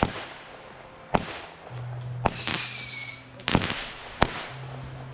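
Fireworks going off: a sharp bang at the start and another about a second in, then a high whistling firework, falling slightly in pitch for about a second, followed by two more bangs.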